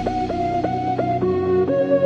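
Background music: a quick run of repeated pitched notes, about four a second, shifting to lower notes about a second in.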